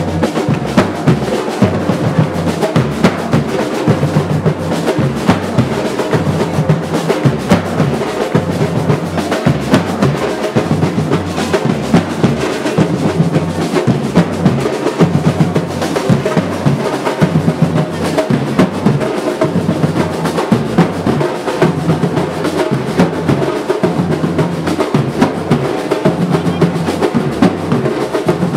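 Drums played in a fast, dense, unbroken rhythm.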